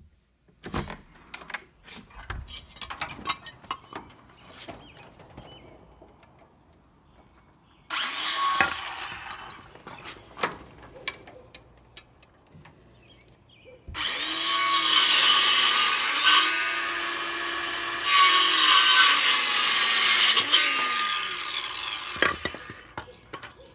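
Power saw cutting wood: a short cut about eight seconds in, then a longer cut from about fourteen to twenty-two seconds in which the motor's pitch sags under load. Before the first cut there are scattered knocks and clicks of lumber being handled.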